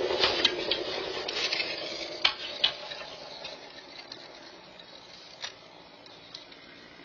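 A car passing close by and driving away, its engine and tyre noise fading over the first three or four seconds, with a few sharp clicks along the way.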